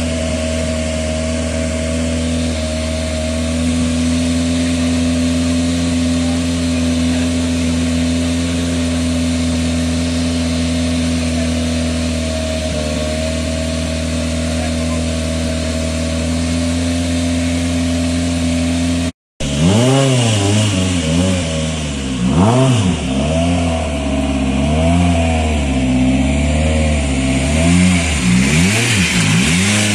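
Citroën C3 WRC rally car's turbocharged 1.6-litre four-cylinder engine idling steadily, then, about two-thirds of the way in, revved up and down in repeated throttle blips.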